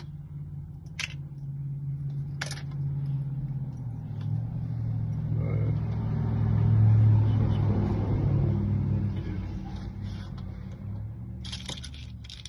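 A motor vehicle passing by: a low rumble that swells to its loudest about seven seconds in, then fades away. A few light metallic clicks of keys and lock parts being handled, near the start and again near the end.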